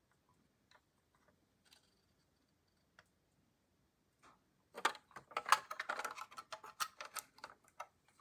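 Handling noise from a die-cast metal model car. A few faint, scattered clicks are followed, from about five seconds in, by about three seconds of dense clicking and rattling as it is turned in the hands and its opening door is worked.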